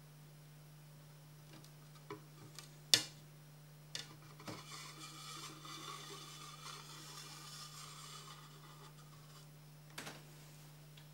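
A single sharp crack as a glass pane snaps in two, then a few light knocks and about five seconds of glass sheets scraping as they slide across a wooden tabletop, ending with a couple of light clicks. A steady low hum runs underneath.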